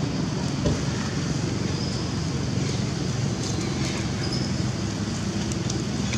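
Steady low rumbling background noise with a few faint high ticks.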